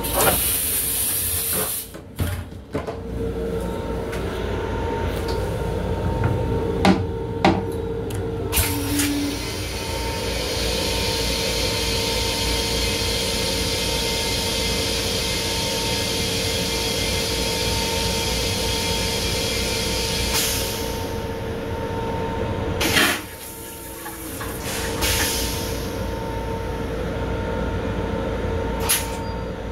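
LIRR M7 railcar toilet flushing: a hiss of rinse water runs for about ten seconds, then a sudden loud whoosh about two-thirds of the way through as the bowl empties. The steady rumble of the moving train runs underneath, with a few clicks early on.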